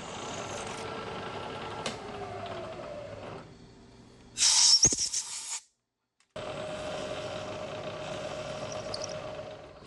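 Bridgeport vertical milling machine running while boring a locating-pin hole in an A2 steel vise jaw: a steady machine hum with a faint whine. About four and a half seconds in, a loud hiss lasts about a second, then the sound cuts out briefly and the mill runs on steadily before fading near the end.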